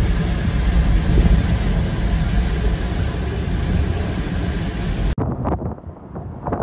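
Hurricane-force wind and driving rain buffeting the microphone: a loud, dense rushing noise heaviest in the low end. About five seconds in it cuts to a thinner, gustier storm recording with scattered crackles.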